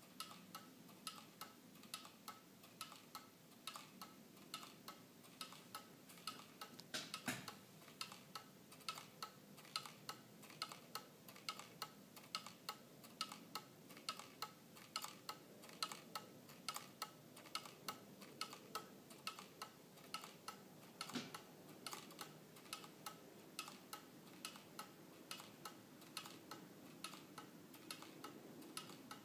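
Tezuka owl pendulum wall clock ticking faintly and evenly, a little over two ticks a second, as its escapement runs the pendulum and rolling eyes. One louder knock comes about seven seconds in.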